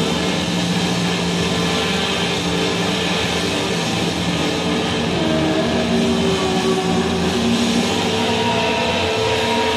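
Loud, heavily distorted electric guitar noise-rock drone: several held notes slowly slide in pitch over a thick, noisy wash of sound.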